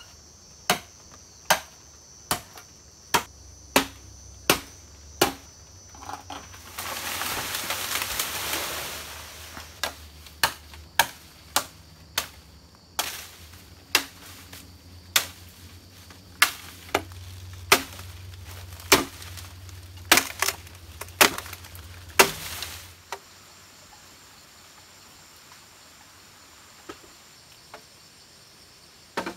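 Machete chopping a green bamboo stalk: sharp chops, about one to two a second, with a couple of seconds of rustling leaves in the middle as the stalk comes down. The chopping stops a few seconds before the end, leaving insects buzzing.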